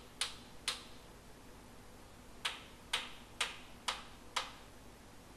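Hammer tapping on a wooden block against a teak chair frame, driving the tenons home in their mortises to close the joint gaps: two taps, a pause of about two seconds, then five more at about two a second.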